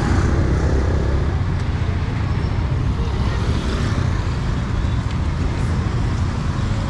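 Steady street ambience: traffic noise with a low rumble, and faint voices in the background.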